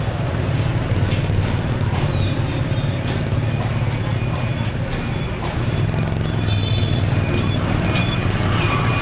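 Steady rumble of motorbike engine and road noise in dense city traffic, with a few short, faint high tones here and there.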